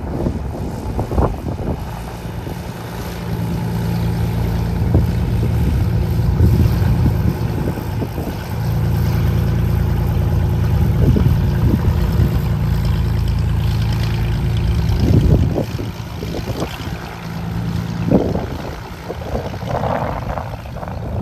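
Cirrus SR22T's turbocharged six-cylinder engine and propeller running steadily at taxi power as the plane rolls past, loudest from about nine to fifteen seconds in.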